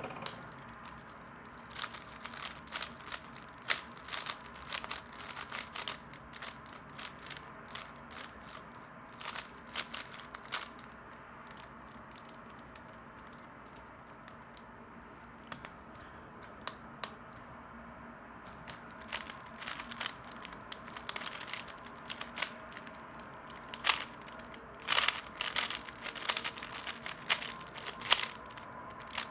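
Plastic 3x3 speedcube being turned fast during a timed solve: rapid runs of sharp clicking and clacking, with a lull of a few seconds in the middle before fast turning resumes.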